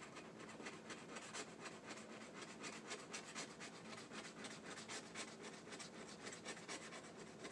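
Scraping the coating off a 20X The Cash scratch-off lottery ticket: quick, repeated back-and-forth scratching strokes, several a second.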